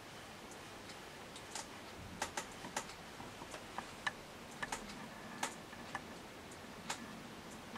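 Antique French brass mantel clock ticking, with louder, irregular sharp clicks over the ticks from about two seconds in.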